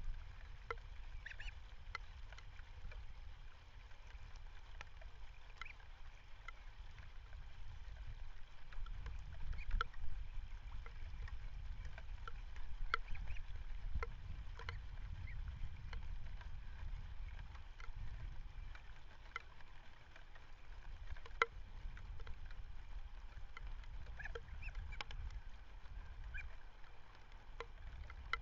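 Wind rumbling and gusting on an outdoor webcam microphone, with scattered short bird calls and chirps.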